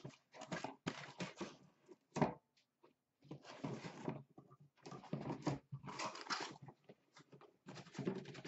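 Cardboard shipping case being handled and tipped, its sides scraping and rustling, with light knocks as the boxed tins slide out into a plastic bin; one sharper knock about two seconds in.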